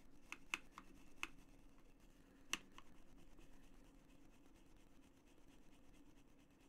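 Near silence: a handful of faint, sharp clicks and taps in the first three seconds, one louder than the rest about two and a half seconds in, over a low steady hum of room tone.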